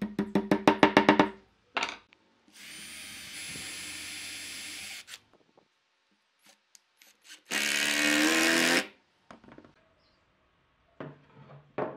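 A claw hammer tapping quickly on a wooden chair joint, about ten blows, then one more. Then a Makita cordless drill driving a wood screw into the frame in two runs, the second louder and changing pitch, with a few knocks of wood being handled near the end.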